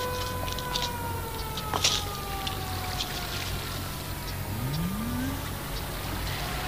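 A siren-like wailing tone that slides slowly down in pitch and starts to rise again near the end, over a steady low hum.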